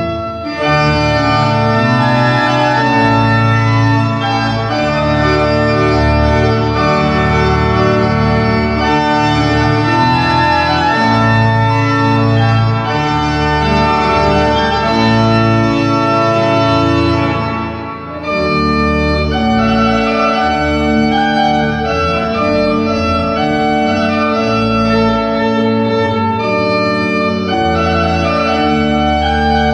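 Organ playing slow, sustained full chords, with a brief break between phrases about two-thirds of the way through.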